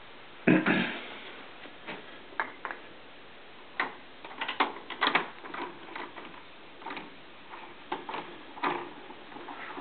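Horizontal window mini blinds being tilted open with the wand: a string of irregular clicks and rattles from the slats and tilt mechanism, the loudest clatter about half a second in.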